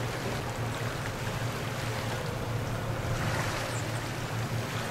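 The ferry Elwha's engines droning low and steady as the vessel passes close by, over a constant wash of water and wind noise.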